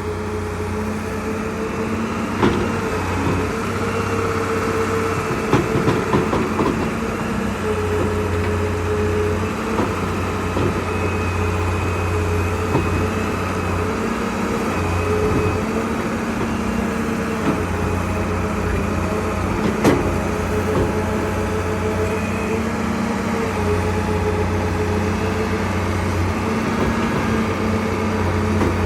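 Excavator's diesel engine running steadily, its low hum swelling and easing as it works, with a few sharp metal knocks.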